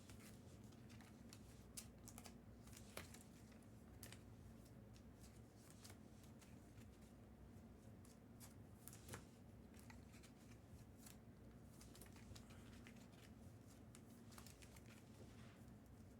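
Near silence with faint, scattered clicks and rustles of trading cards being handled, over a steady low hum.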